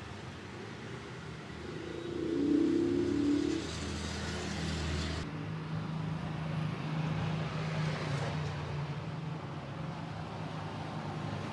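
Road traffic: a motor vehicle's engine running as it passes close by, loudest a few seconds in, with a low rumble that stops sharply about five seconds in and a steady low hum after it.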